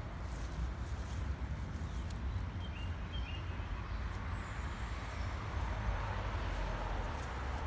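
Outdoor garden ambience: a steady low rumble under a faint hiss, with a few faint bird chirps about three seconds in.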